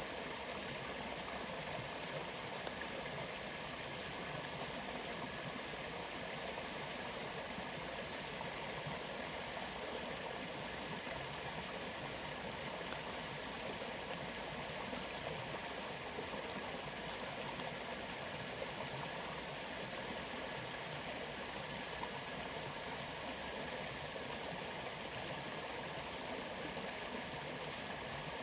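Waterfall and flowing water rushing steadily, an even, unbroken hiss with no distinct drops or taps.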